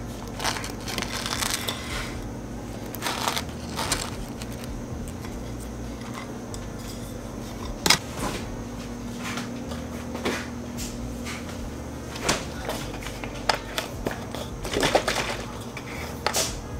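Scattered kitchen handling noises: short knocks and clatter of a plate, doors and containers being moved, with one sharp knock about eight seconds in and a low hum for a few seconds after it. Near the end, rustling and clicks as a plastic juice bottle is handled and opened.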